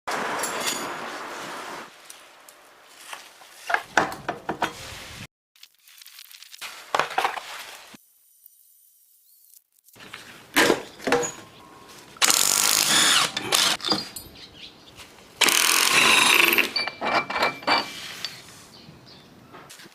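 A power tool running in short bursts, mixed with clicks and clanks of metal tools and parts, while the drive belt of a Honda Benly 110 scooter's belt transmission is worked on.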